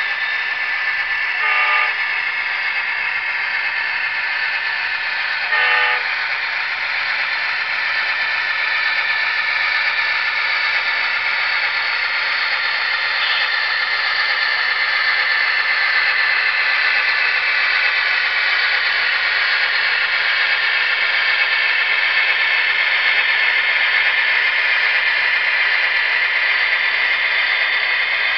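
Sound-equipped model diesel locomotive: the scale GE AC4400CW's engine sound running steadily under heavy load as the train climbs a grade, with two short horn toots about 1.5 and 6 seconds in.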